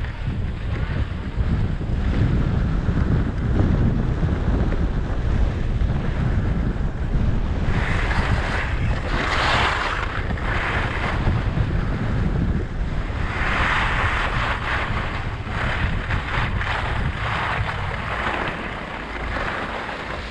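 Wind buffeting the microphone of a skier's camera on a downhill run, a steady low rumble, with skis hissing and scraping on the snow in two stretches of turns in the middle.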